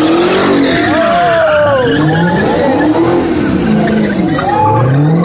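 Dodge Challenger Hellcat's supercharged V8 revving up and down in repeated waves as it does donuts, its rear tyres squealing and skidding on the pavement.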